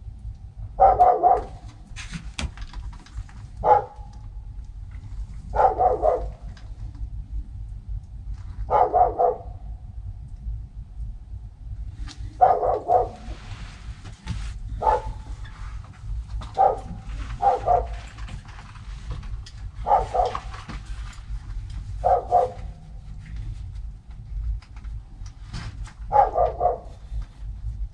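A dog barking about a dozen times, single barks at uneven gaps of one to four seconds, over a steady low rumble.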